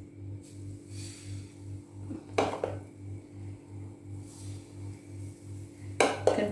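Kitchenware clinking twice, about two and a half seconds in and more loudly near the end, over a low, evenly pulsing hum.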